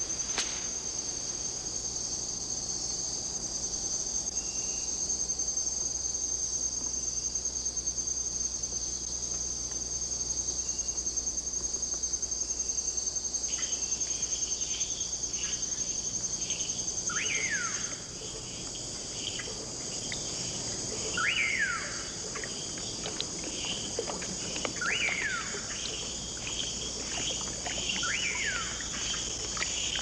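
Insect chorus: a steady high-pitched trill. About halfway through, many short chirps join it, along with a few quick falling calls.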